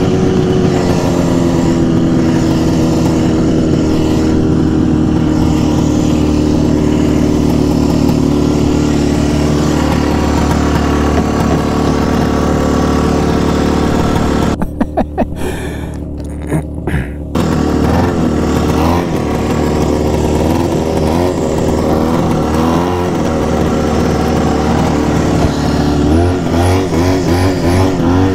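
A 1970 Arctic Cat Panther snowmobile's two-stroke engine running. It winds down at the start, drops off briefly about halfway, then is blipped up and down while the engine is worked on with a screwdriver, revving in quick pulses near the end.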